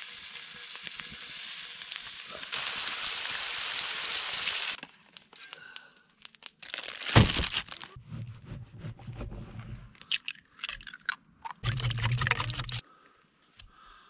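Bacon sizzling in a skillet over a campfire, the hiss growing louder a few seconds in, then stopping. After that come scattered clicks and knocks of food being handled and cut, with one sharp knock about halfway through.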